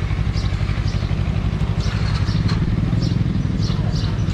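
Motorcycle engine running steadily at low revs, a fast even low pulsing, with faint short high chirps scattered over it.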